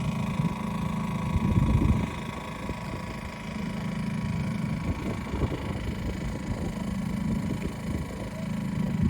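A motor running steadily with a low hum, with wind gusting on the microphone.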